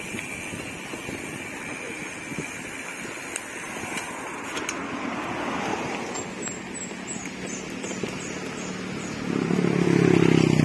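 Steady road and wind noise while riding. Near the end a motor vehicle's engine swells up loudly as it passes close by, then begins to fade.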